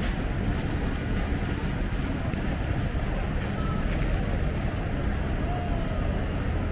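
Storm wind buffeting the microphone, a steady low rumbling rush.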